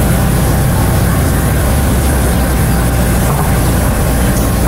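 Steady, loud low rumble like an idling engine or running machine, unchanging throughout.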